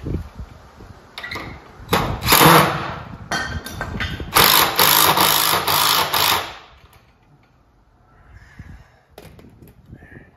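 Cordless drill driving screws up through the bench frame into the wooden seat boards, in two runs: a shorter one about two seconds in and a longer one from about four to six and a half seconds, then it stops.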